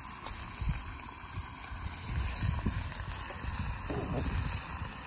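Low, fluctuating wind rumble on the microphone, with faint soft handling sounds from ingredients being stirred by hand in a frying pan on a portable gas camp stove.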